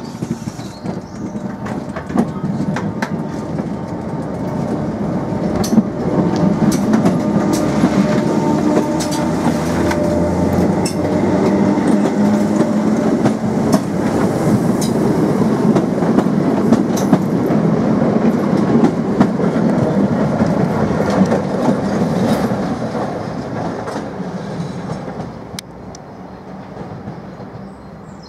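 Class 319 electric multiple unit pulling out and passing close by, its wheels clicking over the rail joints over a dense running rumble. The sound builds over the first several seconds, stays loud for a long stretch, then fades near the end as the train draws away.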